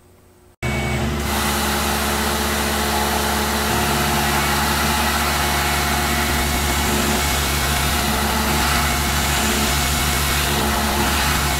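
Tormach PCNC mill's spindle running steadily with an end mill cutting a channel in a fiberglass rifle stock: a steady hiss over a low hum. It starts abruptly about half a second in.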